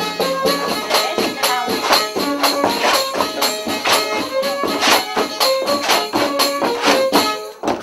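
Folk fiddle playing a dance tune over a steady percussion beat.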